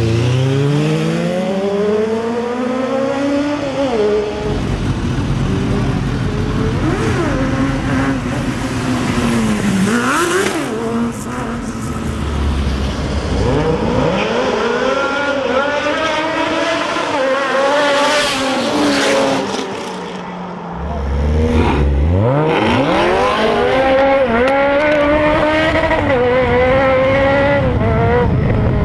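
Sport motorcycle engines accelerating hard, the revs climbing and dropping back at each upshift. In the later part a Suzuki GSX 650F's inline-four and a Chevrolet Camaro Hennessey HPE600 pull away hard together, and the engine winds up through several quick upshifts near the end.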